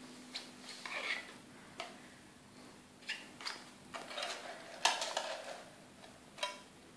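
Irregular light clicks and taps on glass, a few with a brief ring: yellow-bellied sliders' claws scraping and knocking against the aquarium glass as they paddle at the surface.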